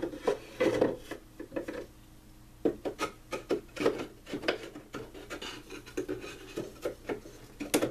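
Irregular scraping, rubbing and light knocks from handling and fitting the parts of a gun-cleaning toolbox.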